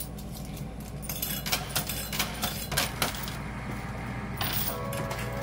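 Quarters clinking and dropping in a coin pusher machine: scattered sharp clicks of coins landing and sliding on the playfield over the machine's steady low hum. A few held tones start near the end.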